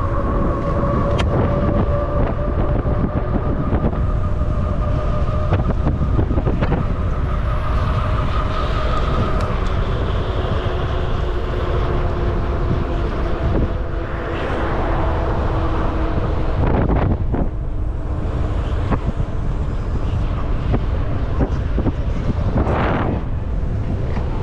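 Wind buffeting the microphone of a moving electric ride, over the steady whine of an electric hub motor that drifts slowly in pitch with speed. There are louder rushing swells about fourteen, seventeen and twenty-three seconds in.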